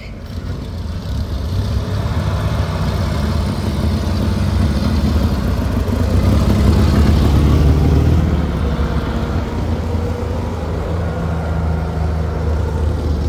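Military truck engine running as the vehicle moves off, growing louder over the first several seconds and then easing slightly.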